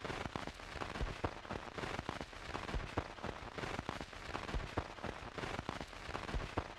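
Dense, irregular patter of small clicks and crackles over a faint hiss, fairly quiet and even throughout.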